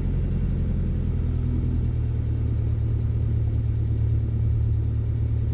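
Mooney M20J's four-cylinder Lycoming IO-360 engine running at low taxi power as the plane lines up on the runway: a steady low drone with no change in pitch.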